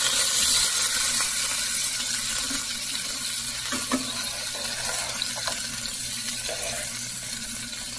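Rib steaks sizzling in hot olive oil in a frying pan, a steady hiss that slowly eases. A couple of light clicks from the tongs as the steaks are turned, about halfway through.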